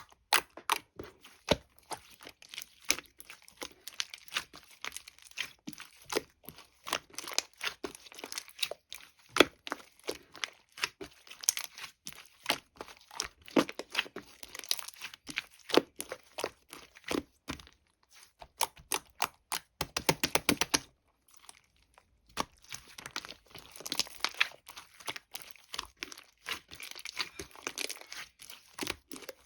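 Close crinkling, tearing and brittle crackling, like a sticky plastic wrapper being peeled off melted lemon hard candy. It is a dense run of irregular clicks and crackles that stops briefly about 21 seconds in.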